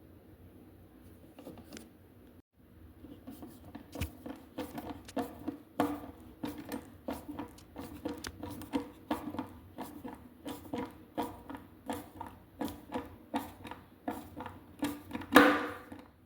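Repeated light clicks and knocks from hand-assembling a wooden cabinet, about three a second, with one louder knock near the end.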